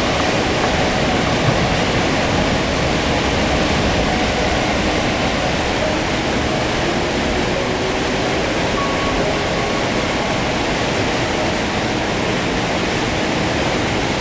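Waterfall running with a steady, loud rush of water, its flow swollen after heavy rain.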